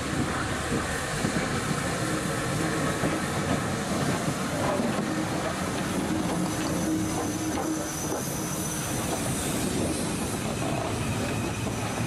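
Steam locomotive passing at close range, its wheels clattering on the rails, with a steady hiss and a thin high squeal from the wheels in the second half.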